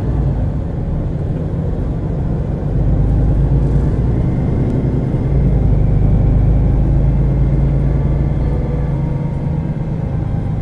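MAN A23 Lion's City G articulated city bus with its diesel engine and ZF EcoLife automatic gearbox running, a steady low drone. It gets louder about a quarter of the way in and again about halfway, then eases off a little near the end.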